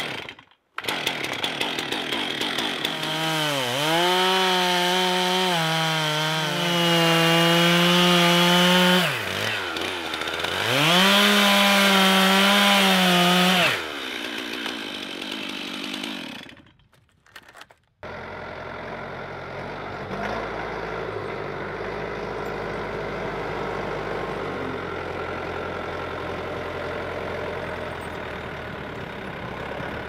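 A Stihl two-stroke chainsaw revving and cutting through a log, its pitch sagging as the chain bites into the wood and holding high in two long full-throttle stretches, then easing off and stopping a little past halfway. After that, a Yanmar tractor's diesel engine running steadily.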